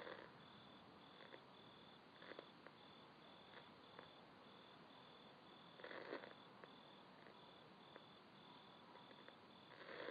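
Near silence, with a faint high chirp repeating evenly about two to three times a second, like an insect, and a short noisy burst about six seconds in.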